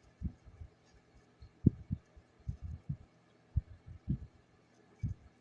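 Low, muffled thumps at an uneven pace, about two a second, some coming in quick pairs.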